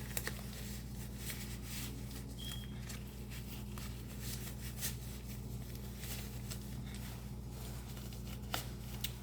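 Faint crinkling and rustling of a disposable isolation gown and gloves as the gown cuffs are tucked in under the gloves, with a couple of sharper clicks near the end, over a steady low electrical hum.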